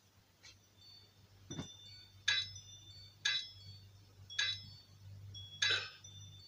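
A pickaxe striking stone: sharp metallic clinks with a brief ring, about one a second, five in all.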